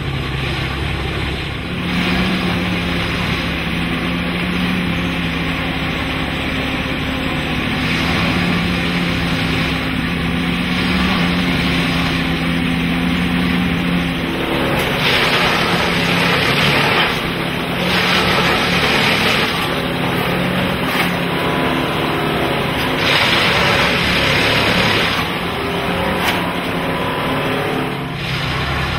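Plasser & Theurer 09-3X track tamping machine at work: a steady diesel-and-hydraulic drone, with louder hissing, rattling bursts of a second or two as it goes through its tamping cycles, three of them in the second half.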